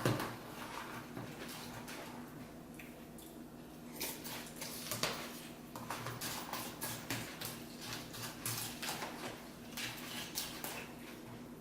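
Crunchy cereal being eaten from bowls: irregular chewing crunches and small clicks, getting busier about four seconds in.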